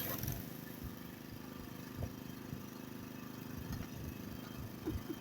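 Pressure washer's Honda horizontal-shaft engine running steadily. The high hiss of the water spray cuts off about a third of a second in, leaving the engine alone with a few soft knocks.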